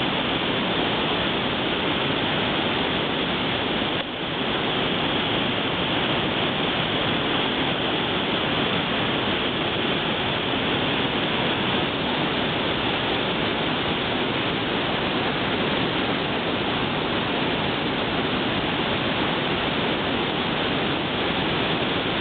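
Waterfall cascades rushing with a steady, even roar of falling water, briefly dipping about four seconds in.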